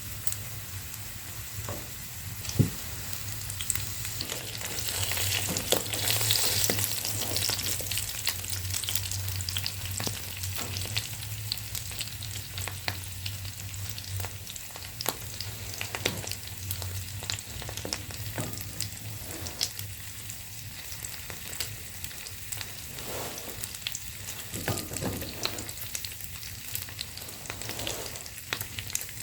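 Food sizzling as it fries in a pan: a steady hiss with scattered crackles and clicks, swelling louder about five to seven seconds in, over a low steady hum.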